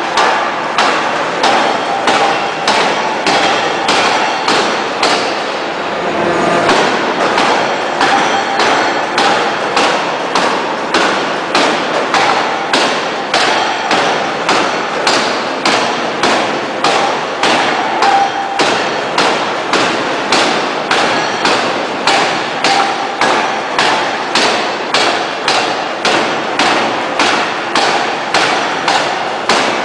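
Hydraulic open-die forging hammer striking a glowing steel shaft forging in steady, rapid blows, about two a second, with a brief pause about six seconds in.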